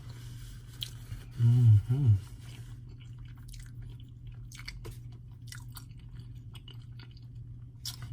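Close-miked chewing, with many small wet mouth clicks, from a person eating. About a second and a half in there is a short two-part hummed "mm-mm" voice sound.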